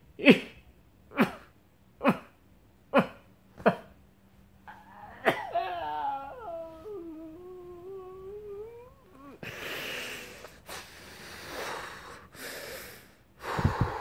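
A man's voice making six short, sharp gasps about a second apart, then a long wavering moan that sinks and rises again, then several heavy breathy gasps, like someone stirring restlessly in his sleep.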